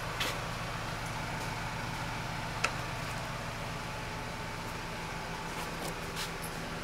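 Steady street-traffic background with a constant low engine-like hum, broken by a few light clicks, the sharpest about two and a half seconds in.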